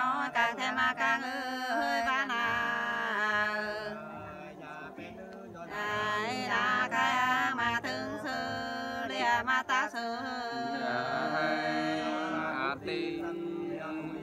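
Two women singing a Nùng sli folk song together, unaccompanied, in long held notes that bend and waver, with a softer stretch in the middle.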